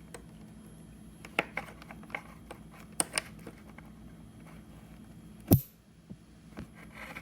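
Small clicks and taps of hands working plastic parts and wiring on a motorcycle's rear fender, with one heavier knock about five and a half seconds in.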